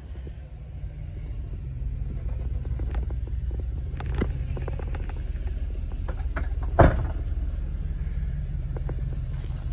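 Diesel engine of a 2014 International ProStar truck tractor idling with a steady low rumble that grows louder after the first second or two. A few light clicks and knocks come over it, the loudest a single sharp knock about two-thirds of the way through.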